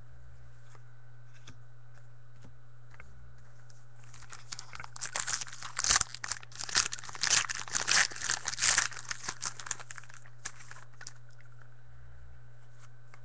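A 2013 Panini Contenders Football trading-card pack torn open by hand, its wrapper crinkling: irregular tearing and crackling starting about four seconds in and lasting about six seconds.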